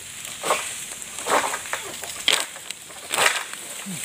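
Long-pole harvesting sickle (SBL M222A) pulled against the stalks high in an oil palm crown: four cutting strokes about a second apart, each with a rustle of the palm fronds.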